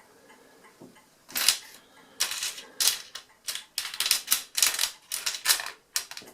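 Small metal parts of an Addo Multo mechanical calculator's counter mechanism clicking and rattling as they are handled. After about a second of quiet, a run of about a dozen sharp, uneven clicks follows.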